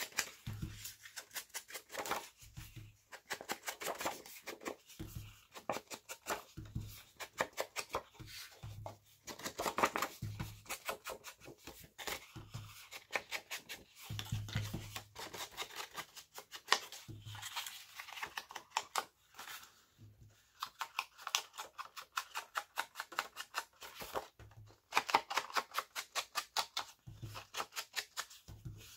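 Foam-tipped ink dauber dabbed rapidly on the edges of paper cut-outs, a dense run of quick dry taps and scuffs with now and then a duller knock against the table.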